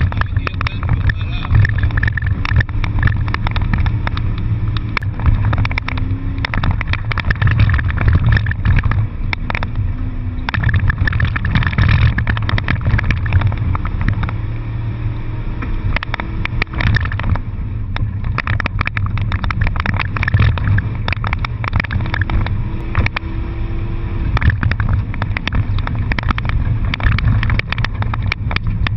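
Car cabin noise while being driven hard around a wet handling course: the engine running and changing pitch, with road and tyre noise and a constant crackle of small knocks and rattles.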